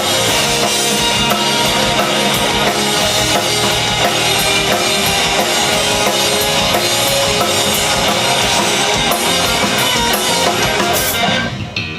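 Live rock band playing at full volume, with a drum kit and guitars. The band stops together about eleven seconds in, leaving the last chord ringing and fading.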